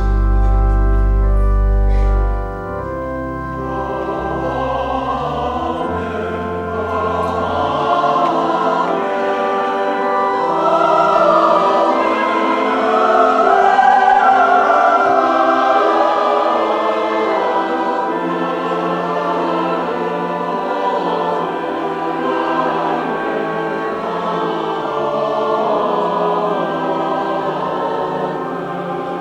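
Congregation singing a hymn with organ accompaniment. It opens with deep sustained organ bass notes for the first two seconds or so, then the voices come in over the organ.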